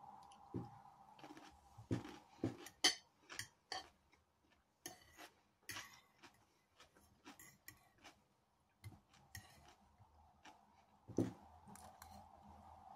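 Metal fork clicking and scraping on a ceramic plate while eating, in short irregular clinks, with soft mouth and chewing sounds between bites.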